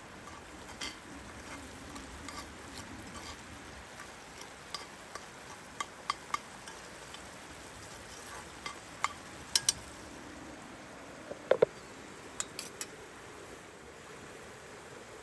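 Scattered light clinks and taps of utensils against metal cookware, some ringing briefly, over a steady soft hiss; the loudest clinks come near the middle and about three quarters of the way through.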